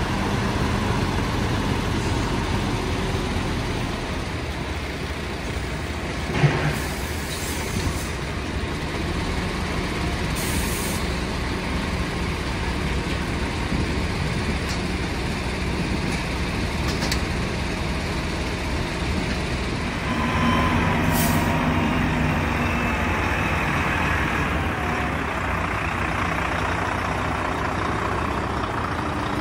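Heavy lorry engine running steadily, with several short hisses of air brakes. A sharp knock comes about a fifth of the way in, and the engine grows louder about two-thirds of the way through.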